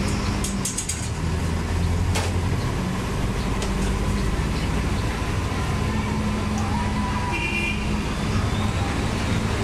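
Diesel engine of a Marcopolo Torino city bus running steadily, heard from inside the cabin. A few sharp clicks and rattles come in the first couple of seconds, and a brief high squeal about seven and a half seconds in.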